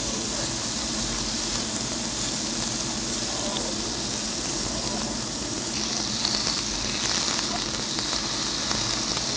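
Thin slices of fatty meat sizzling on a tabletop grill plate: a steady hiss with small crackles scattered through it.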